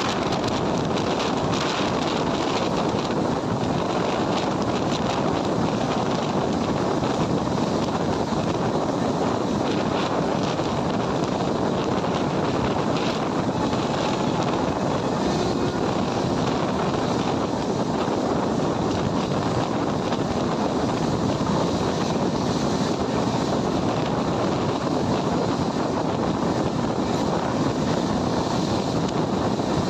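Steady rush of wind on the microphone over the running noise of a moving Indian Railways passenger train.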